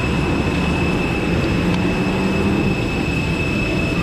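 Steady airliner turbine noise on an airport apron: a dense low rumble under a constant high-pitched whine. A couple of faint clicks come about one and a half seconds in.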